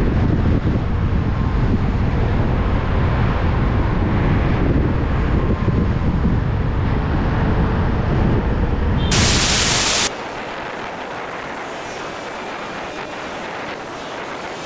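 Wind buffeting the camera microphone while riding along a road, a loud low rumble mixed with traffic and road noise. About nine seconds in, a very loud hiss lasts around a second, then the sound drops suddenly to a quieter, thinner rush of wind.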